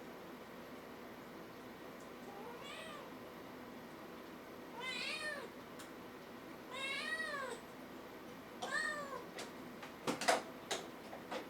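A cat meowing four times, each meow rising and then falling in pitch, about two seconds apart. A few sharp clicks or knocks follow near the end.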